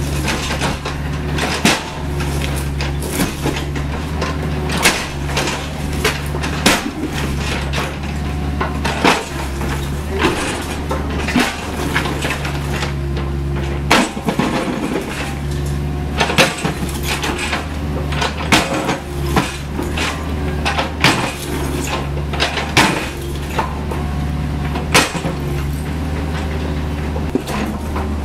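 CAT 304E CR mini excavator's diesel engine running steadily, with frequent sharp clanks and cracks of the steel bucket striking and breaking up concrete slab rubble, irregularly about once or twice a second.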